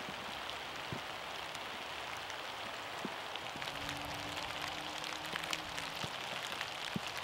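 Steady light rain falling on leaves and leaf litter, with scattered sharp drop ticks. A faint steady hum comes in for about two seconds midway.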